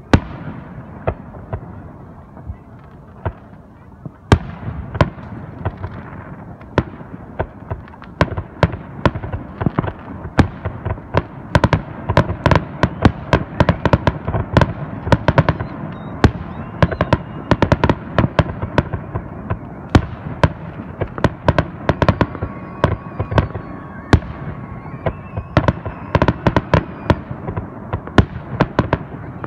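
Fireworks display: aerial shells bursting with sharp bangs and rumbling echoes. A couple of widely spaced booms open it, then from about four seconds in comes a rapid, dense barrage of bangs and crackles.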